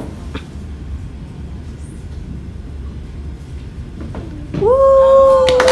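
A long, loud whoop of cheering from a guest about four and a half seconds in, held on one pitch and dropping at the end. Applause breaks out just as it ends. Before it the room is quiet apart from a low hum.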